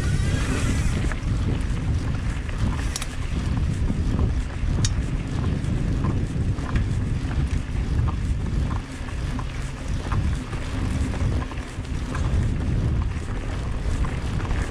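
Mountain bike riding down a dirt trail: wind rushing over the microphone and tyres rumbling over dirt and rock, with scattered sharp clicks and rattles from the bike.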